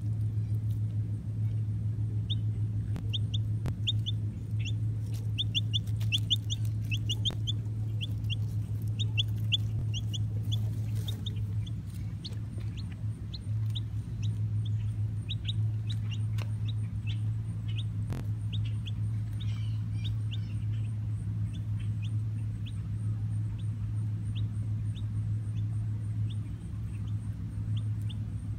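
A baby chick peeping: quick runs of short, high peeps, densest in the first ten seconds and then more spaced out, over a steady low hum.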